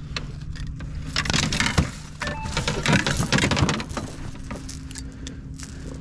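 Irregular clattering and rustling from handling a freshly landed catfish in a boat while it is unhooked, loudest about a second in and again around three seconds in, over a steady low motor hum.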